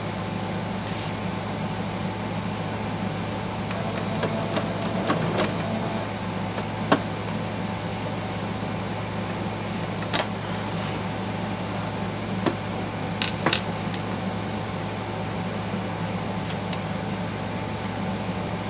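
A steady electric hum, with a few sharp clicks and taps from small metal parts of a sewing machine being handled.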